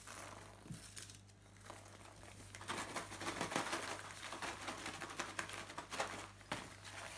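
Folded paper slips rustling and crinkling inside a small pouch as it is shaken and squeezed to mix them, becoming busy and louder about two and a half seconds in.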